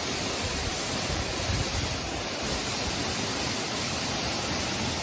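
Waterfall pouring steadily: an even rush of falling water that holds the same level throughout.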